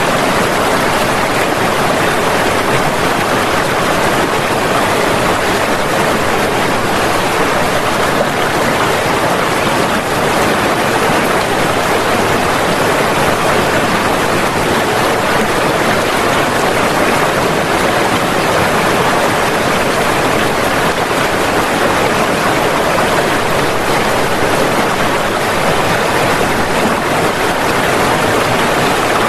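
Rushing floodwater: a steady, loud, unbroken rush of fast-flowing water.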